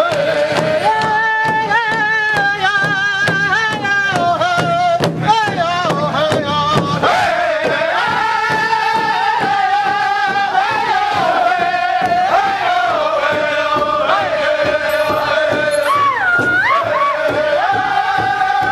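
Music: a voice singing a chant-like melody in long held notes that waver and glide between pitches.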